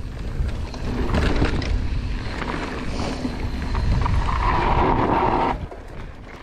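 Mountain bike riding fast down a dirt singletrack, heard from the rider's camera: tyres rumbling over dirt and rock, with rattles and knocks from the bike. The noise grows about a second in, a steady tone joins it about four seconds in, and it all drops off sharply about a second before the end.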